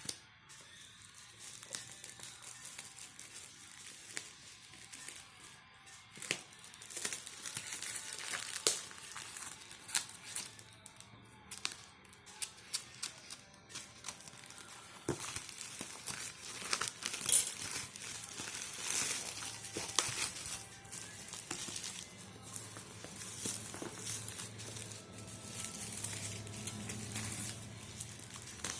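Plastic packaging crinkling and rustling in irregular handfuls as a mini projector is unboxed, over background music.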